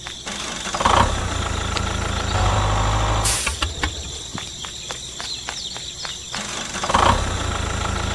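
A low engine-like hum that starts abruptly about a second in and dies away halfway through. A brisk ticking, about three clicks a second, follows. Near the end the hum starts up again.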